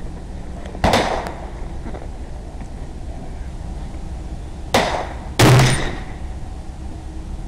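Three rifle shots, one about a second in and two close together near the five-second mark, each sharp with a short ringing tail; the last is the loudest and heaviest.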